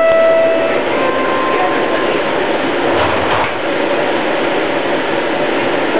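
Steady running hum inside a light rail car's cab while it stands at a station stop. A short electronic tone sounds at the start, and a higher thin tone follows about a second in.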